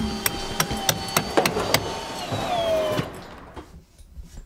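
Building-site work at a solid-timber wall: sharp knocks about three a second over a steady machine whine that sinks a little in pitch near its end. About three seconds in it gives way to a quiet room with a few faint clicks.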